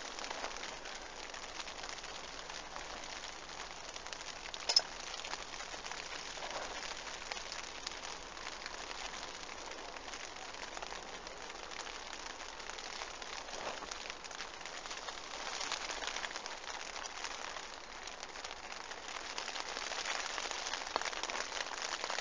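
Steady heavy rain falling, heard from under a bivvy, with a single sharp click about five seconds in.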